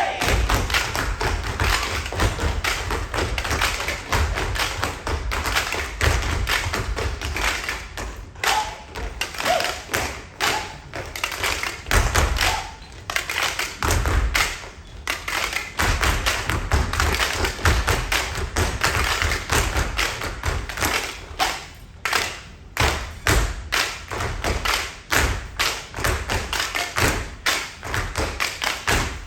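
Stomp-style tap percussion: tap shoes and stomping feet striking a stage floor in a fast, continuous rhythm. Low thuds mix with sharper taps, broken by a few short pauses.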